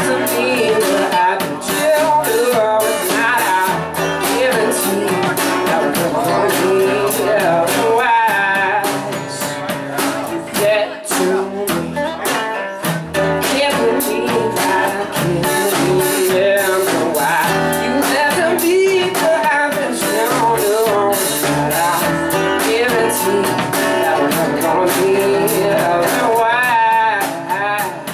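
Live band playing a song: a singer with acoustic guitar, backed by electric guitar, bass guitar and drum kit, with steady cymbal strikes.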